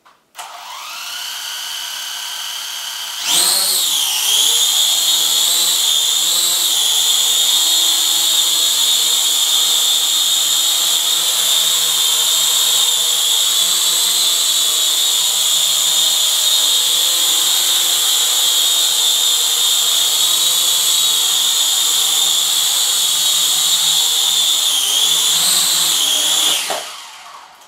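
Corby CX017 Zoom Ultimate mini quadcopter's motors and propellers. They spin up to idle about half a second in, then rise sharply to a loud high whine at takeoff a few seconds later. The whine holds steady with brief wobbles in pitch as it flies, then winds down and stops near the end as it lands.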